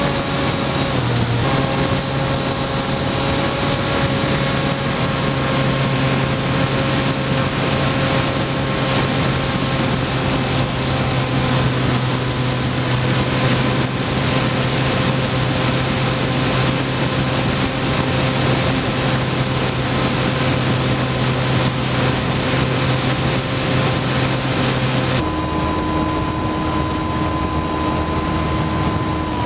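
Electric motor and propeller of a Skywalker FPV model plane running steadily in flight, a constant whine over loud wind rush. Near the end the motor's tone changes abruptly.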